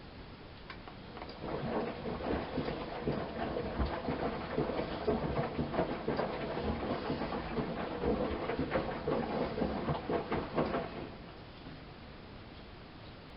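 Miele Softtronic W 204 washing machine drum turning during the wash, laundry tumbling inside it with an irregular clatter of small knocks. It starts about a second in and stops about eleven seconds in, the drum's pause between turns.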